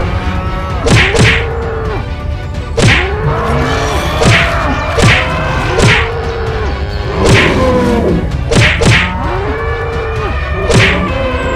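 Cartoon fight sound effects: a run of sharp whacks every second or two, some in quick pairs, each followed by a short bellowing bull call, over a steady low rumble.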